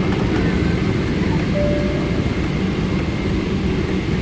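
Boeing 777 airliner noise: a steady low rumble of engines and airflow, with a faint steady high whine.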